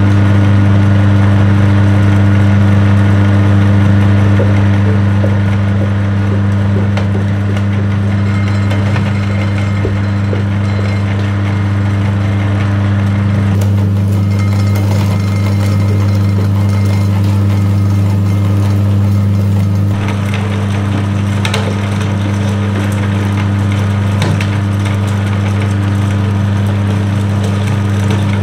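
Electric meat grinder's motor running with no load, a steady low mains-type hum.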